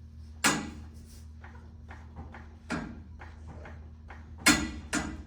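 Sharp knocks and clunks of shop work over a steady low hum: one early, one a little before halfway, and a close pair near the end, the pair the loudest.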